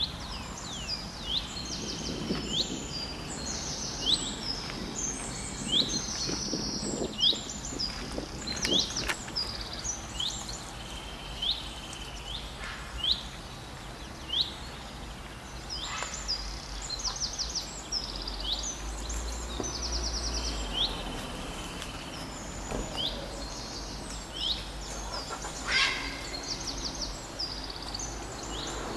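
Birdsong from several birds: many short chirps, quick downward-sweeping calls and rapid trills throughout, over a steady low outdoor rumble.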